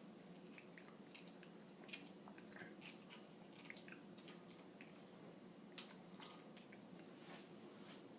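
Faint, irregular crunching of someone chewing crisp homemade microwave potato chips, over a low steady hum.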